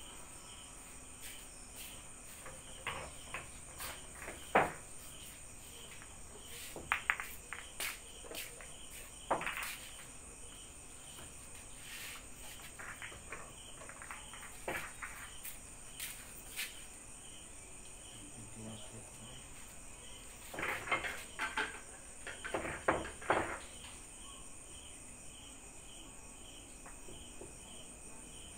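Pool balls clacking sharply against each other as they are gathered and racked on the table, with a quick run of clicks about two-thirds of the way through. Insects chirp steadily underneath.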